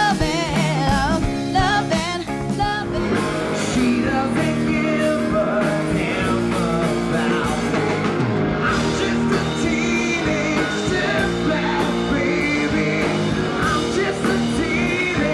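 Band music: a woman singing over electric guitar, then about three seconds in a fuller rock band sound with electric guitars takes over.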